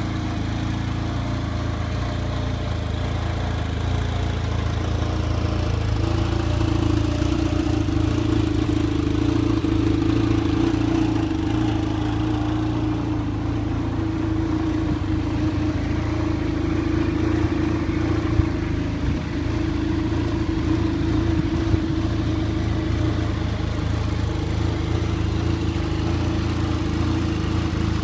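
2009 Arctic Cat Z1 Turbo LXR snowmobile's turbocharged four-stroke engine running steadily at a low, even speed. Its pitch rises slightly about six seconds in, then holds.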